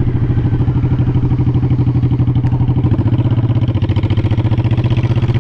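Cruiser motorcycle engine running steadily while riding along the road, its exhaust pulses even and unbroken.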